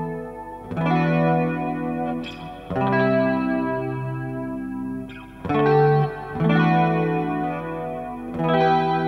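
Electric guitar played through a Small Clone-style analog chorus pedal, the Stomptown Penny Royal. Chords are struck and left to ring, with a new chord every one to three seconds.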